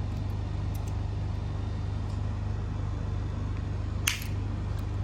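A cutter snips once through the lined-up ends of a Cat6 cable's eight wires, trimming them even, a single sharp click about four seconds in. A steady low hum underlies it.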